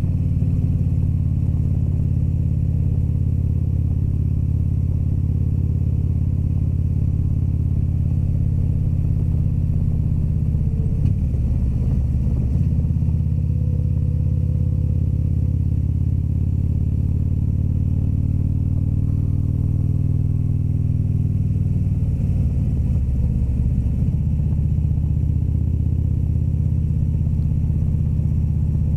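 Harley-Davidson motorcycle's V-twin engine running steadily under way at cruising speed, its note wavering briefly twice.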